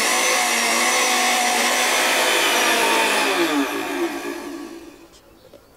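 Countertop blender running steadily as it blends yogurt with cloudberries, then switched off about three seconds in, its motor whine falling in pitch as it winds down to a stop.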